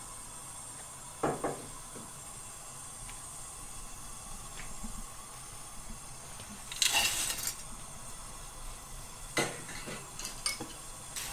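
Dried baby anchovies tipped from a metal strainer into a frying pan: a short rustling clatter about seven seconds in. A few separate clinks and knocks of kitchenware come before and after it.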